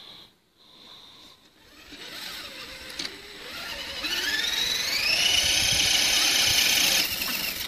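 Electric motor and gears of a 1/10-scale RC crawler whining, rising in pitch over a couple of seconds and then holding steady while it pushes against another crawler, before cutting off about seven seconds in.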